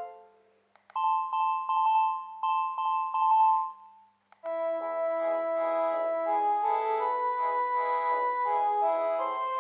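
Panasonic KX-TGH710 cordless phone playing its ringtones one after another. The previous melody dies away, a short bright chiming tune with repeated notes plays for about three seconds and stops, and a fuller melody with several notes at once starts about four and a half seconds in and keeps going.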